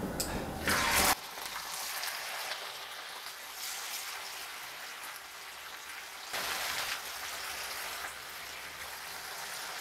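Batter-coated cauliflower florets deep-frying in hot oil in a frying pan: a steady crackling sizzle, with louder spells about a second in and again around six seconds in as more pieces go into the oil.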